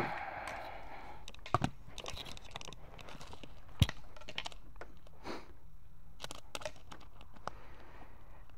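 Handling noises around a race car's cockpit: scattered clicks, knocks and rustling as harness straps and cockpit parts are moved about. A pair of knocks comes about a second and a half in, and a single sharp click about four seconds in.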